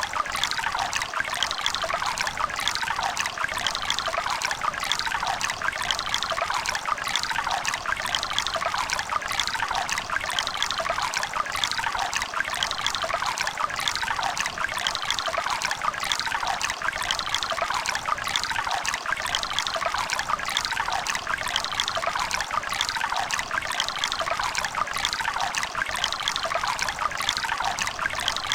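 Water of a river running and splashing over rocks, a steady, even babble with a bright trickling texture and no change in flow.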